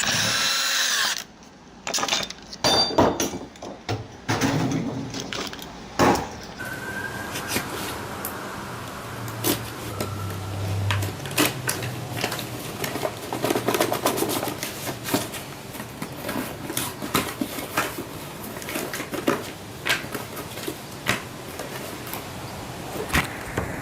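A power drill runs and stops about a second in, followed by scattered clicks, clinks and knocks of small metal lock parts and packaging being handled.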